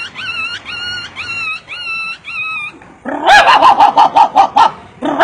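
A man imitating a dog with his voice: about six short, high whimpering yips, roughly two a second, then after a brief pause a louder, rapid run of yelping calls.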